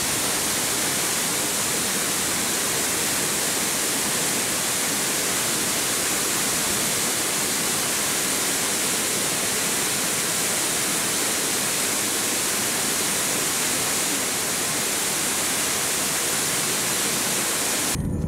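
Falling Water Falls, a low, wide waterfall spilling over a rock ledge into a pool: a steady rush of falling water, with the creek running full after rain.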